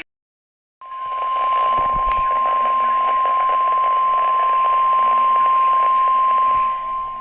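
NOAA Weather Radio warning alarm tone (the 1050 Hz tone): one loud, steady beep starting about a second in and held for about six and a half seconds over a steady radio hiss. It signals that a warning, here a severe thunderstorm warning, is about to be broadcast.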